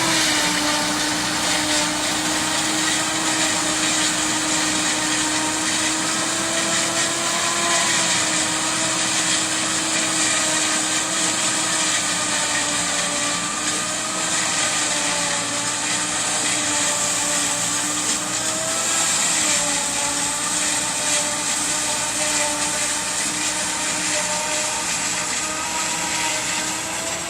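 Kubota ME 9000 tractor driving a Fimaks row-independent forage harvester that is chopping maize for silage: a steady mechanical whine over a broad hiss, its pitch sagging briefly a few times as the load changes.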